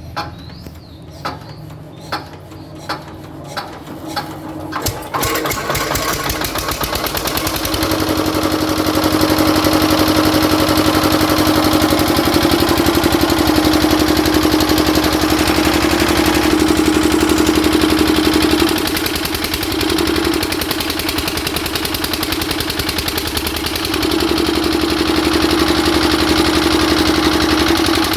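Kirloskar 7.5 kVA generator engine being cranked, with separate compression thumps coming faster over about five seconds, then catching and running steadily. It gets louder about eight seconds in, and its hum dips for a few seconds past the middle before returning.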